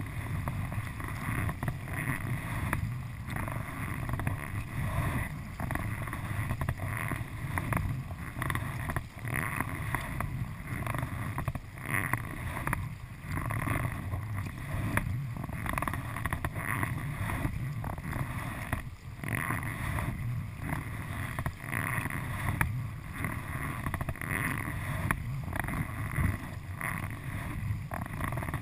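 Kayak paddle strokes splashing in a steady, repeating rhythm, with water washing along the hull and wind rumbling on the microphone.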